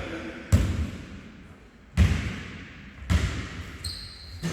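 Basketball dribbled on a hard gym floor, slow bounces about a second to a second and a half apart, each ringing in the hall. A short high squeak comes near the end.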